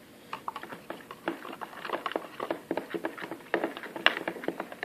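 Irregular small taps and sticky squelches, several a second, of glue-and-shaving-cream slime being stirred and worked in a container.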